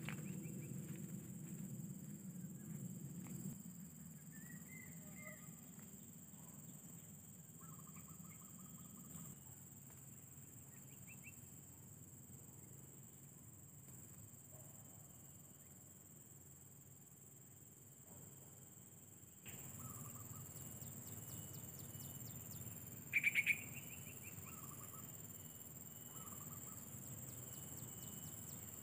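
Faint outdoor birdsong: scattered short chirps, with one sharper, louder call about 23 seconds in, over a steady high buzz of insects and a low rumble of wind.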